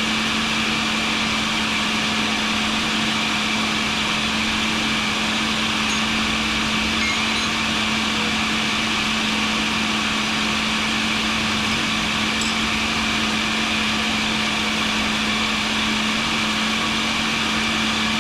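Carbide grinder and a small dust-collection vacuum running steadily together: a constant motor hum under a broad, even hiss.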